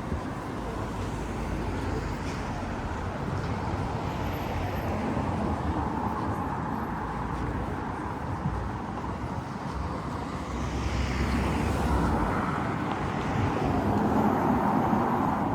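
City street noise with a motor vehicle passing, the sound swelling about ten seconds in and staying louder near the end.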